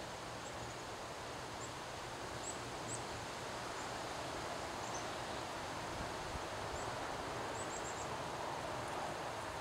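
Windstorm gusts rushing steadily through trees, the leaves rustling. Faint short high chirps are scattered throughout.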